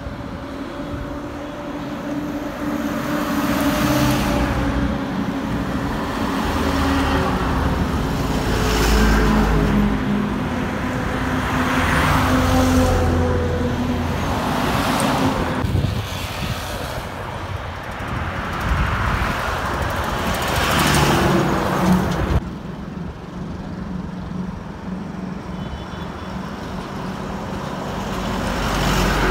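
Heavy diesel lorries passing on a highway, one after another. Their engines hum under tyre and road noise, and each pass-by swells and fades.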